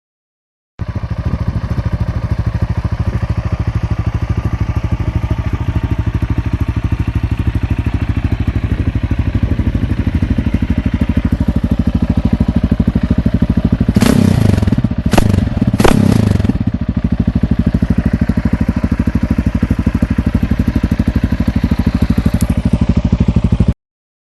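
Yamaha XT660's single-cylinder engine running through an Akrapovic exhaust, idling with an even pulse. A little past the middle it is revved in three quick blips, then settles back to idle.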